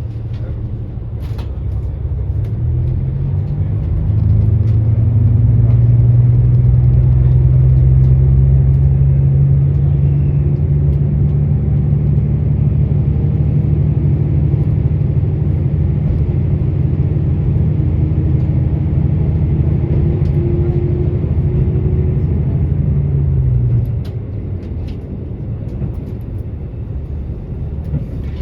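KiHa 85 diesel railcar's Cummins engine running under power, heard from inside the passenger car. Its note climbs over the first few seconds, then holds steady and loud. About 24 seconds in it drops away suddenly, leaving quieter running noise.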